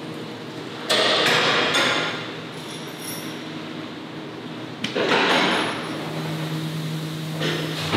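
Metal clanking and rattling on an abattoir dressing line, over a steady machinery hum: two loud, harsh clatters about a second long, one near the start and one about halfway through, with light metallic pings in between.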